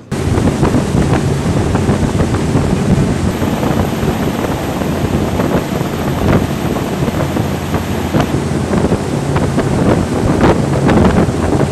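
Combat Boat 90 running at high speed on its twin waterjets: a steady low engine drone under the rush of water and spray, with heavy wind buffeting on the microphone.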